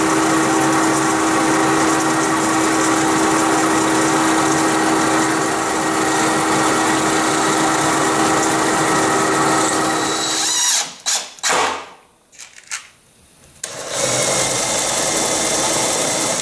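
Benchtop drill press running with a twist bit boring through plywood, a steady motor hum with one held tone, stopping about ten seconds in. A few short bursts and knocks follow, then a DeWalt cordless drill spinning a small bit into the plywood for the last couple of seconds.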